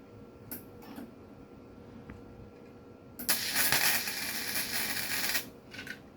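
A couple of sharp clicks, then a wire-feed welder's arc crackling for about two seconds. It is laying weld inside a nut to join it to a broken, rusted exhaust stud. Two brief clicks follow near the end.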